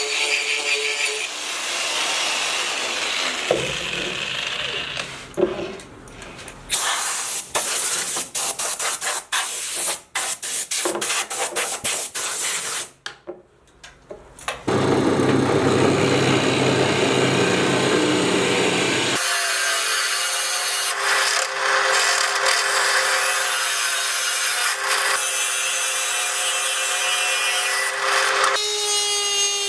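Hand and power tools working a bamboo root, in short clips that cut abruptly from one to the next. First come rapid scraping and rubbing strokes with brief gaps, then about halfway through a power tool runs steadily against the wood. Background music plays briefly at the start and again near the end.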